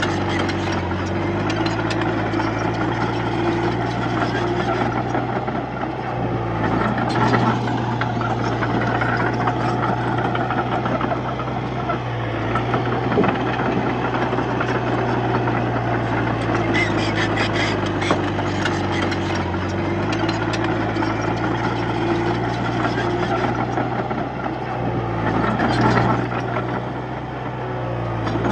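Komatsu D31-P bulldozer's diesel engine running steadily, its note dipping and recovering several times as the blade load changes, with occasional clattering ticks.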